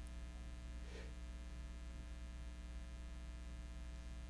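Faint, steady electrical mains hum, a stack of even buzzing tones, with one faint brief sound about a second in.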